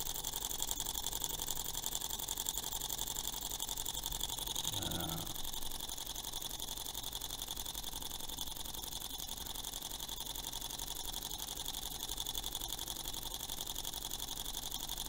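Small model hot-air Stirling engine running steadily on its spirit-burner flame, its piston and spinning flywheel making a fast, even mechanical ticking, heard close up.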